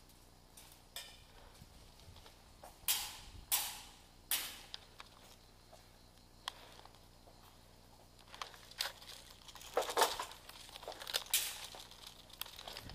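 Footsteps crunching on gritty, debris-strewn concrete. There are three separate steps a few seconds in, then a few more crunches near the end.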